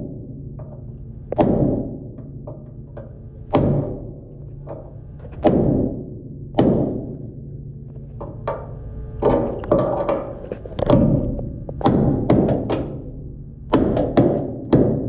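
Hammer blows driving a tight-fitting fastener through a lowering drop hanger and the truck's steel frame. There are about a dozen sharp metallic strikes, spaced irregularly one to two seconds apart, with some quicker pairs in the second half.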